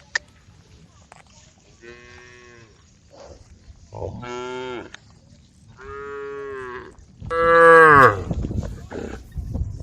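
Cows mooing: four short moos, one after another, the last one the loudest, with low thuds and rustling after it near the end.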